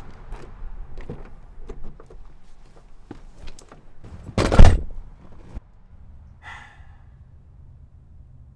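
Honda sedan's driver door being opened and a person climbing in, with small clicks and knocks, then the door shut with one loud heavy thunk about halfway through.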